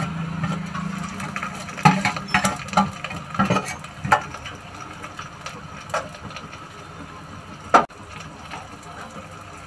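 Metal spatula and steel plate clinking and scraping against an iron kadai as ginger paste is tipped into the pan: a quick run of sharp clicks and knocks in the first few seconds, then a few single knocks, one sharp one near the end.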